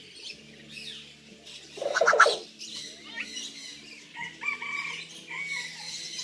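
A bird calls loudly once, a harsh, rich call about two seconds in. A run of shorter whistled notes follows from around four seconds.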